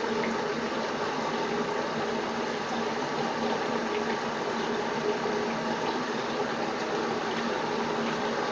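Bathtub tap running steadily, its stream of water splashing onto the tub floor.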